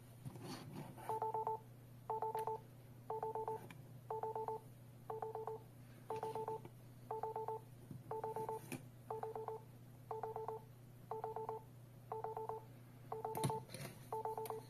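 STANIOT home alarm control panel's built-in buzzer beeping about once a second, each beep a short rapid chirp on two tones: the entry-delay countdown, warning that the code must be entered before the alarm goes off. A few light clicks from handling come in near the start and later on.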